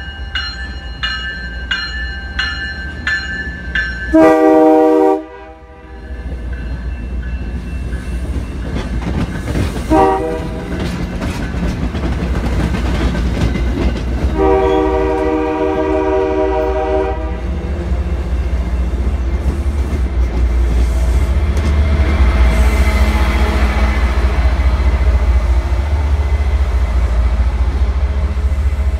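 MBTA commuter train passing through the station. A bell rings about twice a second at first, then the horn sounds a short blast about four seconds in, a brief toot around ten seconds and a long blast of about three seconds around fifteen seconds. After that come the steady rumble and wheel clatter of the coaches and the MPI HSP46 diesel locomotive pushing at the rear.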